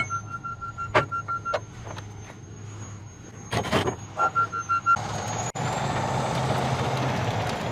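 Truck reversing alarm beeping in two short spells, with a few sharp knocks. From about five seconds in comes a steady rushing hiss over a low engine hum.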